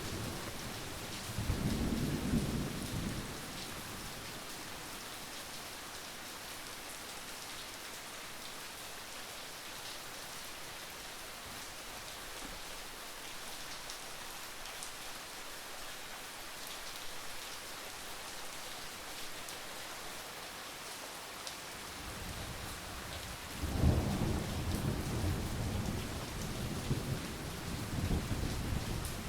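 Steady rain falling, with thunder rumbling: a short roll about two seconds in, then a longer, louder one from near the last quarter that keeps on to the end.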